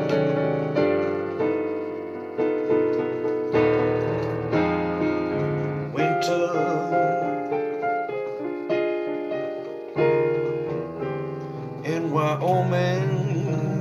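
Digital piano played solo in a slow jazz-gospel ballad style: chords and melody notes struck in turn and left to ring and fade.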